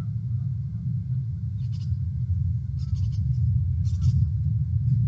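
A bald eagle giving three short calls about a second apart, over a steady low rumble.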